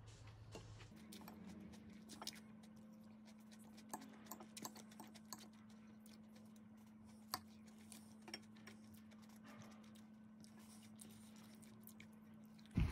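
Faint, scattered clicks of a metal fork against a ceramic salad plate while picking up salad, over a low steady hum.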